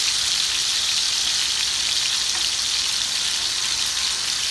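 Ribeye steaks frying in hot oil in a cast iron skillet: a steady sizzling hiss with faint crackles.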